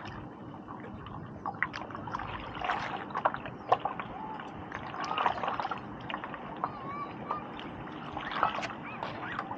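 Water splashing and trickling around a stand-up paddleboard as the paddle dips and drips, in irregular short splashes.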